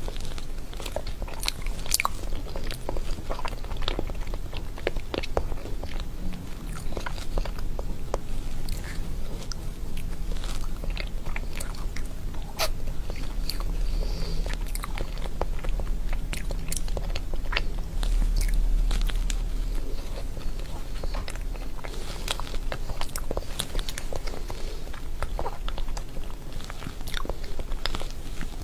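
Close-miked eating of solid chocolate: biting and chewing, with frequent crisp snaps and crunches.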